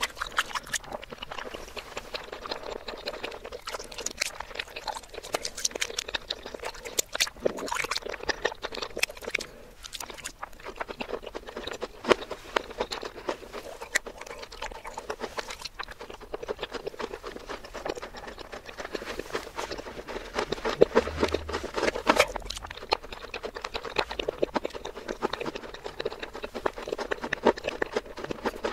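Close-miked chewing of soft chocolate pudding, played in reverse: a dense, continuous run of wet smacks and sticky mouth clicks.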